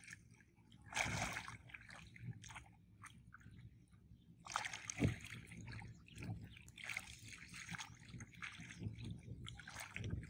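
Shallow muddy water splashing and sloshing as a man wades and gropes with his hands under the surface, in uneven bursts, with louder splashes about one second in and again around five seconds in.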